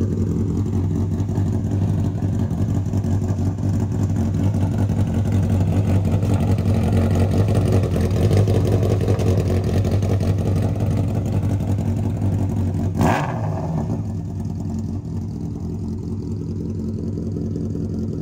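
Motorcycle engine mounted in the back of a van, idling steadily through twin upswept exhaust pipes. One sharp crack sounds about two-thirds of the way through.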